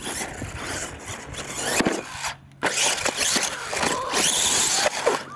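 Radio-controlled monster truck driving hard on dirt. Its motor whines up and down with the throttle and cuts out briefly about two seconds in.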